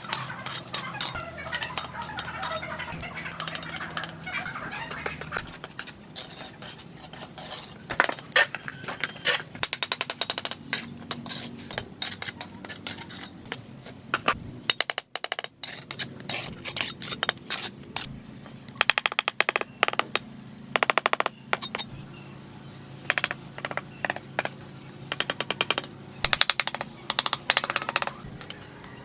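Steel mason's trowel tapping bricks down into wet mortar and scraping off the excess mortar: a long, irregular run of sharp taps and clinks with scraping between them.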